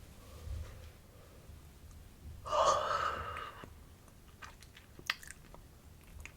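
A long, breathy yawn of about a second, starting about two and a half seconds in, followed by a few faint mouth clicks.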